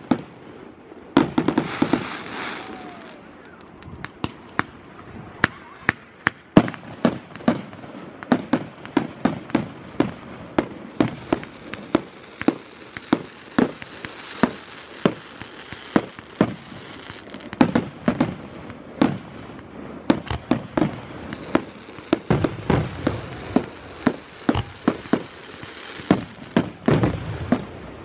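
Aerial fireworks bursting overhead: a rapid, irregular string of sharp bangs and reports, several a second, with a patch of crackling hiss about a second in.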